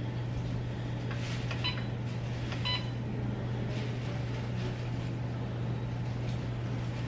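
Two short electronic beeps, about a second apart, among a few light clicks, over a steady low hum.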